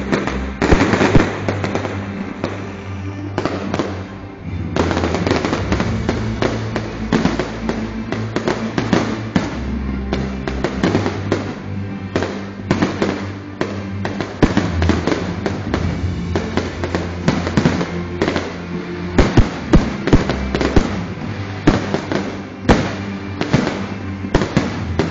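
A fireworks display in full barrage: dense bangs and crackles of shells bursting in quick succession, with the heaviest bursts about a second in and again near the end, over music played along with the show.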